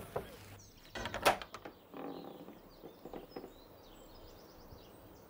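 A spoon clicks against a tin can at the start. About a second in, a wooden barn door clatters with a short run of knocks, then faint bird chirps are heard.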